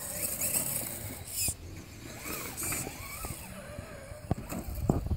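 Radio-controlled scale crawler's electric motor and gears whining as it drives and climbs, the pitch rising and falling with the throttle. A few sharp clicks sound near the end.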